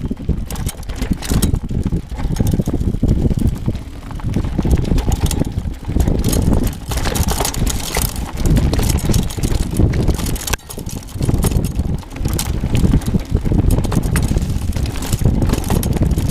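Mountain bike being ridden over a dirt trail: tyre noise and rattling clicks over bumps, with wind buffeting the microphone.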